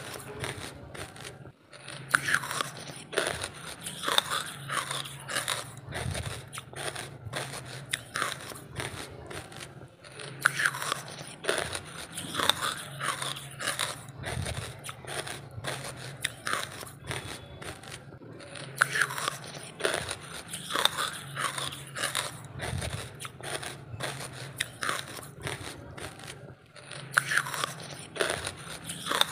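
Lumps of charcoal being bitten and chewed close to the microphone: dry crunches, several a second, with a short pause about a second and a half in.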